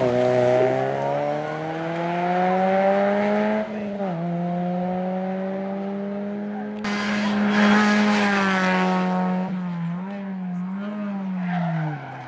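Rally car engines at full throttle: an engine climbs steadily in pitch, drops sharply at a gear change about four seconds in and pulls again. From about ten seconds another car's engine pitch swings up and down with repeated throttle blips and lifts as it brakes and turns.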